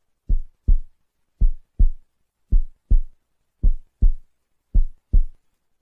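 Heartbeat sound effect: five deep double thumps, lub-dub, repeating a little over once a second.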